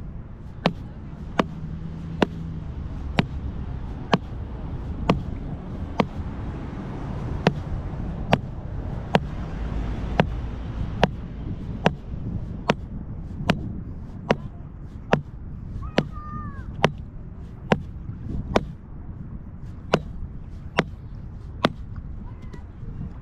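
An orange mallet knocking steadily on a white PVC rod-holder pipe in the sand, a sharp knock a little more than once a second, over a low rumble of wind.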